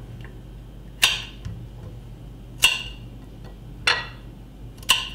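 A kitchen knife cutting the tips off yellow squash, its blade clicking sharply against the plate four times, a second or so apart.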